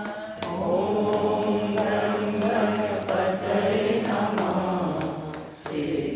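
Voices singing a Hindu devotional bhajan, holding long sliding notes, with sharp beats keeping time; the singing dips briefly near the end.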